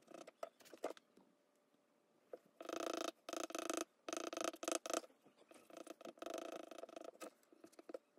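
Charcoal pencil scratching on drawing paper in rapid back-and-forth shading strokes. The strokes come in short clusters, the busiest stretch in the middle and another shortly after.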